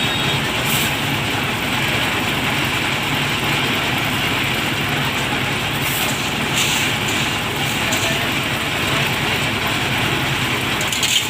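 Concrete mixer machine running steadily, its engine giving a constant low hum.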